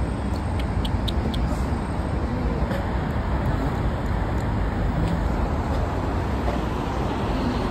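Steady street traffic noise with a low rumble, and a few light clicks in the first second or so.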